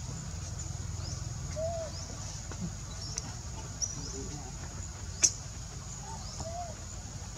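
Outdoor forest ambience: small birds chirping in short rising notes, over a steady high whine and a low rumble. Two soft, short calls rise and fall, and a single sharp click comes about five seconds in, the loudest sound.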